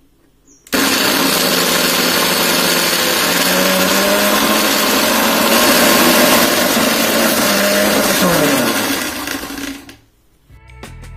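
Electric mixer-grinder blending chopped cucumber into a drink in a steel jar: the motor starts abruptly about a second in and runs steadily for about eight seconds. It is then switched off, its hum falling in pitch as it spins down.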